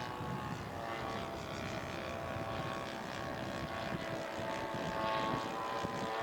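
Engine of a radio-controlled scale model airplane running in flight: a steady buzzing note whose pitch drifts slightly.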